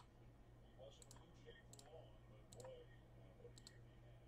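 Faint clicking at a computer, a handful of separate clicks a second or so apart, over a low steady hum.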